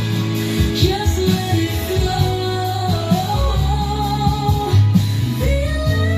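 A pop song with a sung vocal over guitar and a heavy bass line, played back through a stereo pair of LD Systems CURV 500 ES column speakers and a JBL PartyBox 120 for a sound test.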